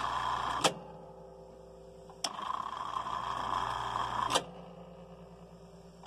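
Brastemp washing machine drain pump running dry with a steady hum and whir of its freely spinning impeller, switching off and on with a sharp click each time: it stops less than a second in, starts again about two seconds in, stops again past four seconds and restarts near the end. It runs quietly, no longer jamming.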